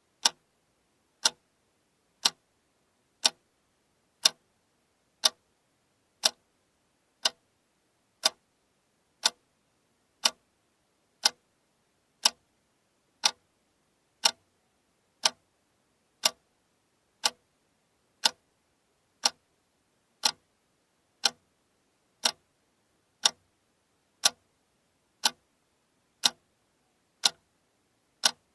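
Alarm clock ticking steadily, one sharp tick every second with silence between.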